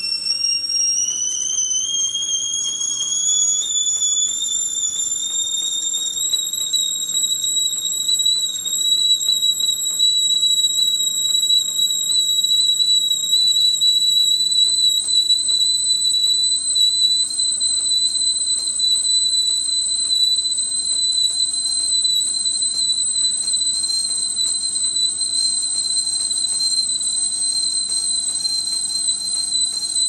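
Stovetop whistling kettle whistling at the boil: one loud whistle that rises in pitch over the first several seconds, then holds steady.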